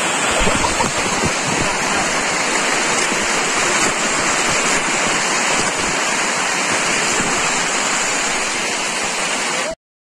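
Water rushing over rock in a small waterfall close by, a loud steady roar of noise. It cuts off suddenly just before the end.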